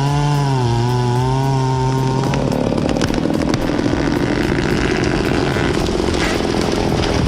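Chainsaw running at high speed. A lower, steady engine drone underneath stops about two and a half seconds in.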